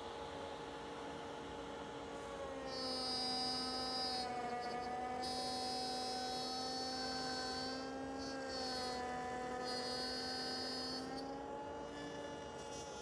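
Router with a dovetail bit running as a steady whine and hum. From about two seconds in until near the end its pitch sags and recovers and it grows slightly louder, as it does when the bit is cutting into wood.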